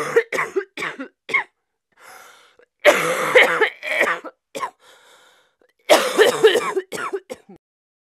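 A 36-year-old woman coughing continuously in repeated fits, unable to catch her breath: runs of short sharp coughs and two longer harsh fits, with faint breaths drawn between them. The coughing stops a little before the end.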